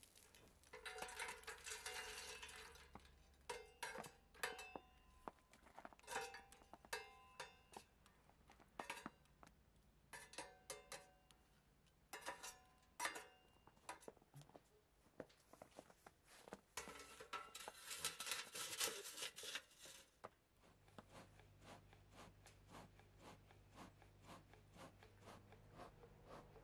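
Light metal pieces clinking and knocking together in irregular clusters of short ringing strikes, with two spells of rustling noise. In the last few seconds a low steady hum with faint rapid ticking.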